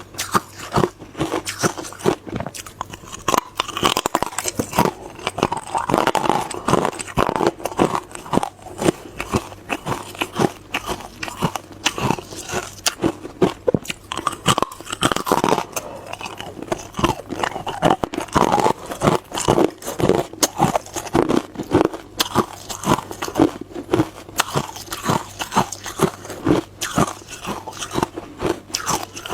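Hard clear ice being bitten and chewed close to the microphone: rapid, irregular crunching and cracking, several crunches a second.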